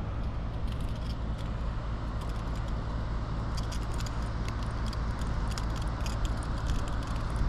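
Light metallic clicks and rattles of a lure's hooks being handled while a small bass is unhooked, heaviest in the second half, over a steady low rumble.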